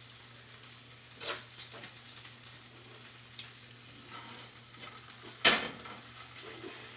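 Food sizzling in a hot pan, a steady hiss, with a few sharp utensil knocks against cookware; the loudest knock comes about five and a half seconds in.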